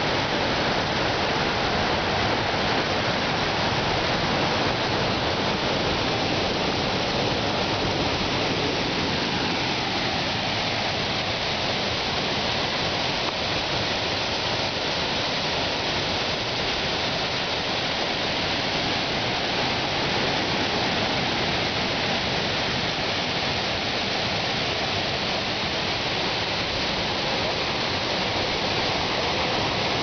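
Whangarei Falls running high with brown floodwater, a steady, unbroken rushing of water from the plunge pool at its base.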